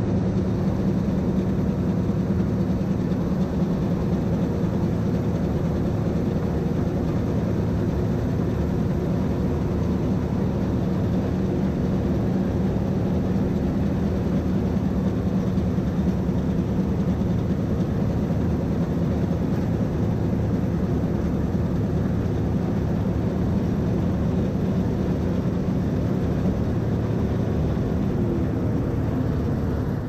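John Deere 2056 combine harvester running steadily at working speed while unloading, a constant low engine and machinery drone with even rushing noise.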